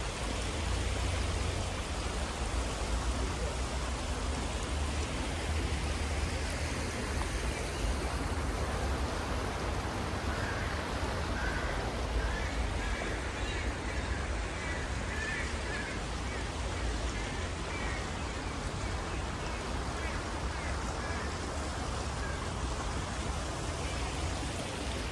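Shallow river water rushing steadily over a low step and stones, an even splashing hiss, with a steady low rumble underneath.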